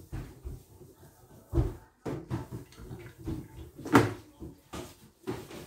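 A cloth wiping and rubbing over a stainless steel sink drainer, with irregular knocks and bumps on the metal; the loudest knock comes about four seconds in.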